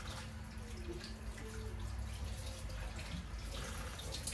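Kitchen faucet running into the sink, water splashing over a large piece of pork being rinsed to wash the blood out.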